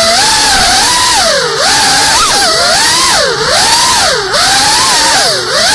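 GEPRC Cinelog 35 cinewhoop's brushless motors and ducted propellers whining, the pitch rising and falling with the throttle. It dips sharply about four times in the second half as the throttle is chopped and punched again.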